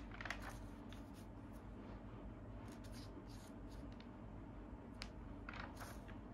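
Pages of a comic magazine being turned by hand: two short papery swishes, one just after the start and one near the end, with a few light paper ticks between, over a low steady hum.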